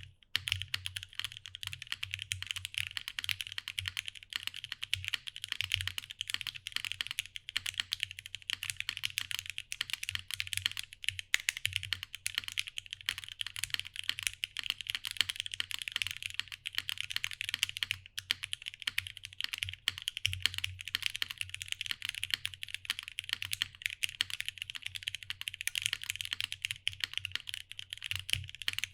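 Continuous fast typing on a custom O-ring-mounted mechanical keyboard with lubed and filmed vintage Cherry MX Black linear switches and GMK doubleshot keycaps: a steady stream of dense keystroke clacks with a low thock under them.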